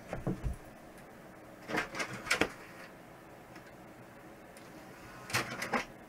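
Newly built desktop PC running with a steady low fan hum, broken by short bursts of rustling and knocking at the start, about two seconds in and near the end.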